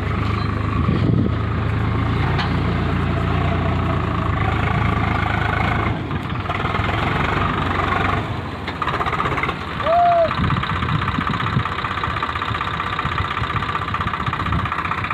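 Swaraj tractor's diesel engine running steadily while towing a trailer loaded with potato sacks. About ten seconds in comes a brief rising-and-falling high tone.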